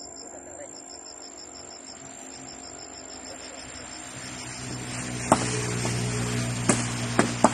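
A rapid, even trill of high insect chirps in a quiet outdoor background. Past the middle a low steady hum swells, and three sharp knocks ring out near the end from the men working at the upright post.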